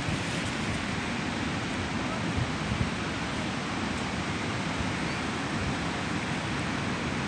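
Steady rush of sea surf, with a couple of light wind buffets on the microphone about two and a half seconds in.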